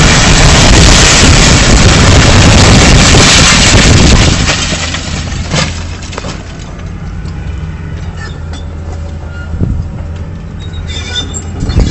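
A multi-storey concrete building collapsing in demolition: a loud, continuous rumble and crash of falling masonry that overloads the microphone, stopping abruptly about four seconds in. After that a steady engine hum from the demolition excavators remains.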